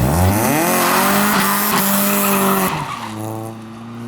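VAZ 2107's 1.6 16-valve engine revving up as the rear winter tyres squeal and skid on asphalt in a short drift. The skid stops after about two and a half seconds, and the engine drops to a steady lower note.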